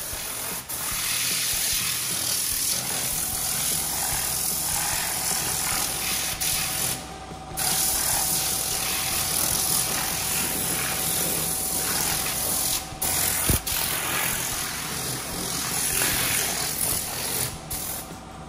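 Tornador compressed-air cleaning gun spraying a very fine mist of diluted cleaner: a loud, steady hiss of air with two brief breaks, about seven and thirteen seconds in, stopping near the end.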